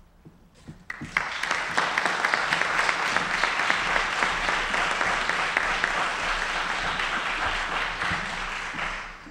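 Audience applauding. The clapping starts about a second in, holds steady and dies away near the end.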